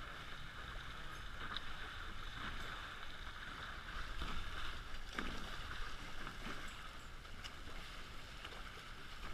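Water rushing and splashing steadily past the hulls of a Hobie 16 catamaran under sail, over a low wind rumble.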